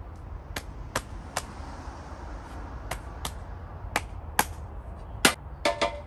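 Sharp clicks and light knocks of plastic and metal parts being handled and fitted on an Iseki mini tiller's engine, most likely the air-cleaner cover going back on. There are about ten separate clicks, the loudest a little past five seconds in.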